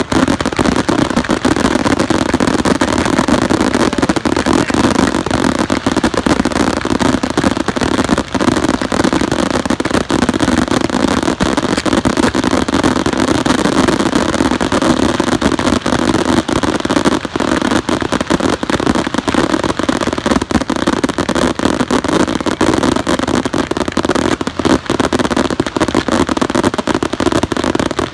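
Fireworks barrage: many shots launching, bursting and crackling at once, loud and without a break.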